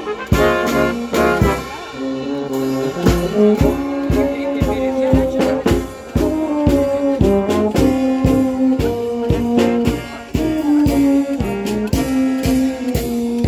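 A small live brass band playing a tango for dancers: a brass melody over a steady beat.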